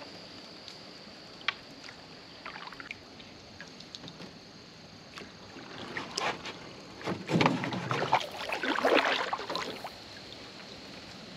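Paddle strokes and water splashing around a small paddled boat, with light knocks against the hull: a few faint ones early, then a louder, busier stretch of paddling about six seconds in that eases off near the end.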